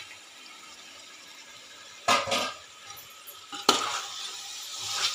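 Steel ladle and bowl clinking and scraping against a steel cooking pot as chopped tomatoes are tipped in and stirred into the frying chicken masala: a small click at the start, two sharp clinks about two seconds in, another near four seconds, then scraping.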